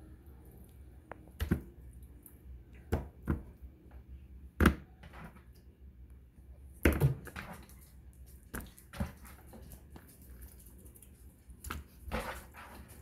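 Pieces of raw, freshly rinsed oxtail set down one at a time into a bowl, a wet thud every second or two.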